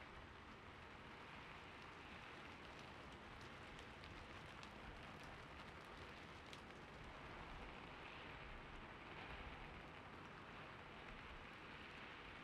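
Faint, steady rain sound, with a scatter of faint light ticks in the first half.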